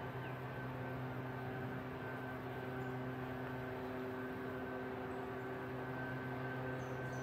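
Steady mechanical hum with several steady tones and no rise or fall, from a source that is not seen. A few faint high bird chirps near the end.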